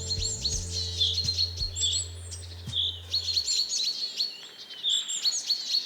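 Chorus of forest songbirds singing: many quick, high chirps and sweeping trills repeating throughout. A low steady hum underneath fades out about halfway through.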